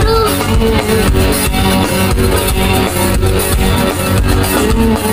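Amplified band music through a large outdoor PA system, guitar-led with a steady beat.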